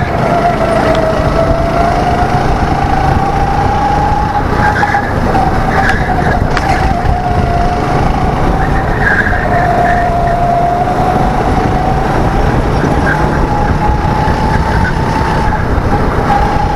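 Go-kart engine running at speed, heard from the driver's seat, its pitch rising and falling gently as the kart drives through the corners.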